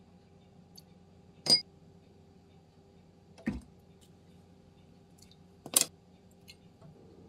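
A metal spoon clinking against a small glass bowl as spoonfuls of sauce ingredients are tipped in, a sharp clink about a second and a half in and another near six seconds. Between them, about three and a half seconds in, comes a duller, deeper knock, over a low steady hum.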